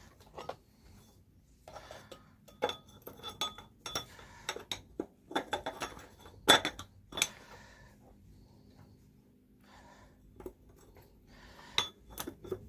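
Metal parts clinking and knocking together as they are handled: a flurry of sharp clinks for several seconds, then a quieter stretch and a few scattered clinks near the end.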